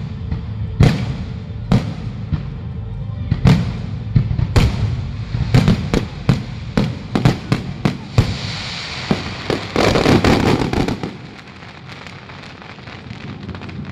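Aerial fireworks going off in a string of sharp bangs. About eight seconds in they build into a dense crackling volley that stops suddenly about three seconds later. Music plays underneath.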